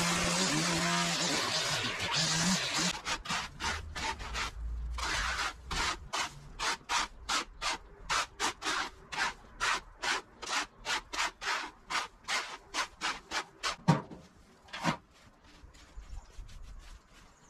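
A string trimmer runs steadily for about the first two seconds. From about three seconds in, a fan rake scrapes debris across concrete in quick strokes, about two a second, ending with a single thump.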